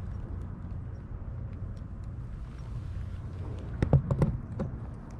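Steady low outdoor rumble, with a short cluster of clicks and knocks about four seconds in.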